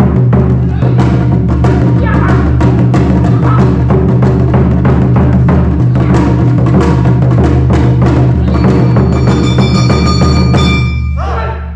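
Awa Odori dance music: taiko drums beating a fast, steady rhythm together with other traditional instruments, the drumming breaking off near the end.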